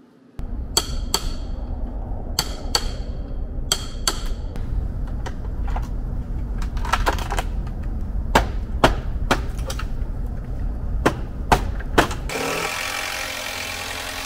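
Demolition hammering on wood: about a dozen sharp hammer or pry-bar knocks, irregularly spaced, some with a short metallic ring, over a steady low rumble. In the last two seconds a steady rushing noise takes over.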